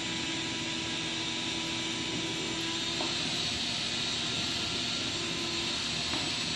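A steady, even hiss runs throughout, with no clear knocks or clicks over it.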